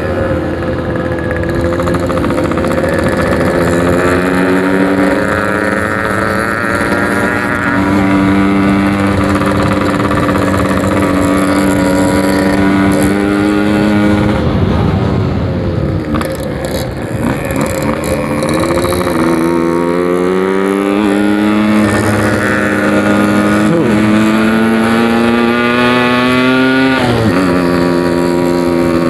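Yamaha RX-King 135cc two-stroke motorcycle engine under way, its pitch climbing slowly and steadily as it pulls. The pitch falls sharply about halfway through and again near the end, then climbs again each time.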